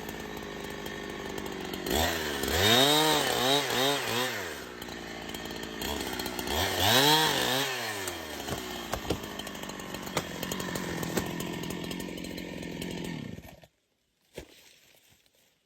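Chainsaw engine running, its pitch surging up and down in two spells of repeated revving about two and six seconds in, otherwise running steadily; the sound cuts off suddenly near the end, followed by a single click.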